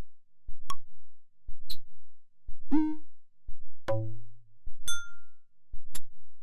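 A series of short electronic blips and tones from a KTF-X8000 mobile phone's Yamaha MA-5 sound chip, about one a second, each with a different timbre: sharp clicks, a short upward-sliding tone and ringing beeps.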